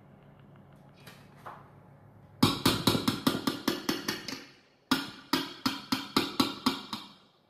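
Electric hand mixer beaters being knocked against the rim of a stainless steel mixing bowl: sharp metallic knocks at about five a second, in two runs of roughly two seconds with a short gap between.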